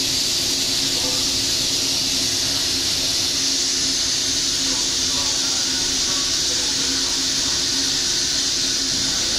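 Shinano Railway 115 series electric train standing at the platform: a steady high hiss over a low, even hum, with no change in pitch or level.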